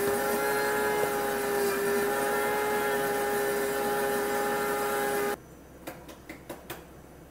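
A commercial blender motor running at a steady high speed, a loud even hum with several held tones, that cuts off suddenly about five seconds in. A few light knocks follow.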